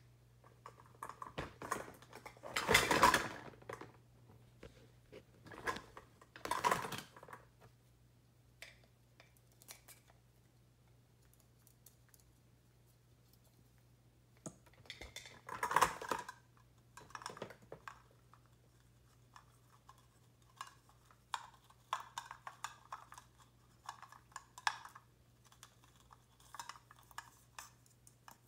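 Toys in a bin clattering and rattling as a ring-tailed lemur rummages through them, in irregular bursts with scattered small clicks and knocks, loudest about three seconds and sixteen seconds in.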